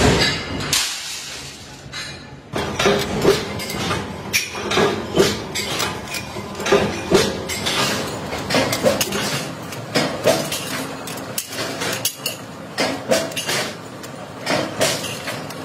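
Round steel sprocket blanks clinking and knocking against each other as they are picked up and stacked by hand, an irregular run of sharp metallic clanks with short ringing, several a second.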